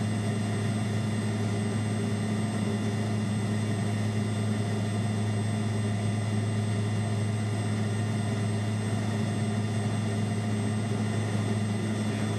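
Steady drone of an MU-2 Marquise's twin Garrett turboprop engines heard inside the cockpit in cruise flight. A strong low propeller hum carries a set of steady higher whining tones above it.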